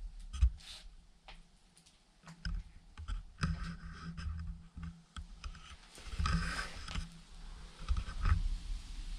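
Scattered small clicks, light knocks and scrapes, with dull thuds, as old belongings are handled and moved about.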